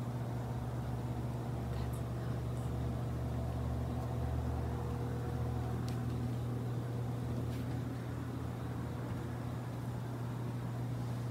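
Steady low mechanical hum, even and unbroken, with a faint higher steady tone above it and a few faint clicks.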